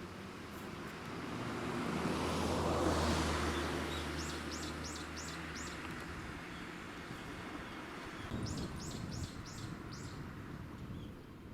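A vehicle passing, its engine hum and road noise swelling and fading over a few seconds. A bird gives two quick runs of about five chirps each, the first while the vehicle fades and the second a few seconds later.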